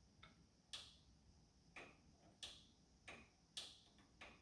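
Faint, sharp clicks, about seven at uneven intervals, over near silence.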